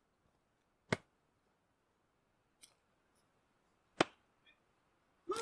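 An axe biting into upright log rounds while splitting firewood: two sharp blows about three seconds apart, with a faint knock between them.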